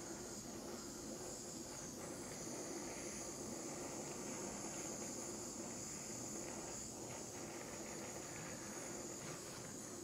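Mini torch running with a steady hiss as its flame scorches the wood.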